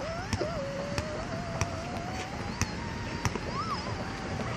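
Basketball bouncing on an outdoor rubber court, a sharp bounce every half second or so. A thin, slowly rising tone with a wobble near the end runs beneath the bounces.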